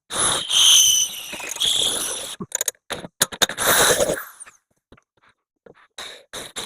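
Handheld power tool working on the steel loader bucket in short trigger bursts, each starting and stopping suddenly, with a high squeal that rises and falls in pitch and a quick run of sharp clicks in the middle.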